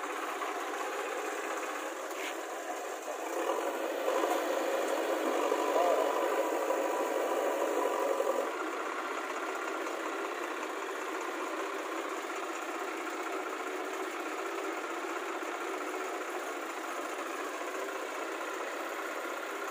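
Diesel engines of a Swaraj tractor and a JCB 3DX backhoe loader running. The sound rises for several seconds soon after the start as the tractor pulls forward with its trolley, then settles to a steady run.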